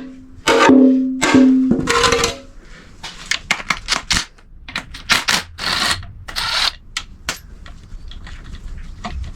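Hand tools and metal engine parts clinking and clattering in a series of sharp knocks and clicks, with a ringing metal tone in the first two seconds, while the engine's underside is worked on.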